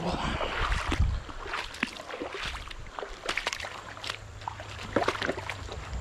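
Shallow river water running over rocks, with scattered light clicks and knocks and a low rumble underneath.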